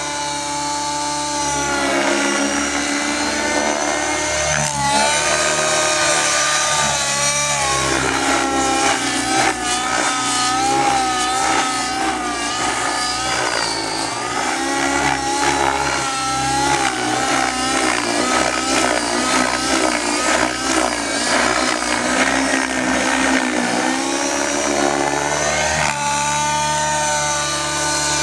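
Align T-Rex 700N nitro RC helicopter in flight: its two-stroke glow engine and spinning rotors make a loud, continuous whine. The pitch keeps rising and falling as the helicopter manoeuvres.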